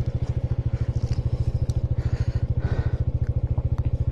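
Bajaj Dominar 400's single-cylinder engine idling steadily, its exhaust pulsing rapidly and evenly, with a few faint clicks.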